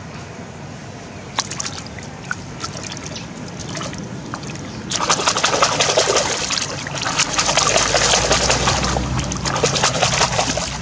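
Water splashing and sloshing around live catfish in a wire-mesh fish basket sitting in shallow river water. A few light drips and splashes come first, then about five seconds of dense, continuous splashing.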